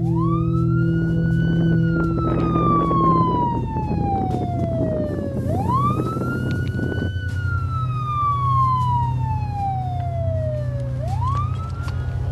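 Police car siren wailing in slow cycles. Each cycle climbs quickly, then glides slowly back down. There are two full cycles, and a third climb begins near the end, over a steady low hum.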